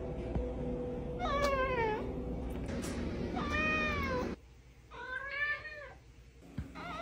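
House cat meowing: three separate meows, each under a second long, the first falling in pitch and the other two rising then falling.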